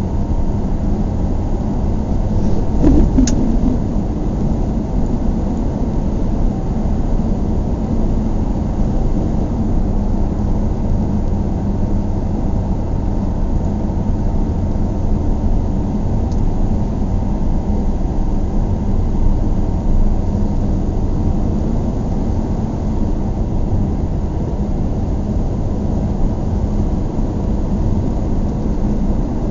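Car driving at highway speed: steady low rumble of tyres and engine, with a brief click about three seconds in.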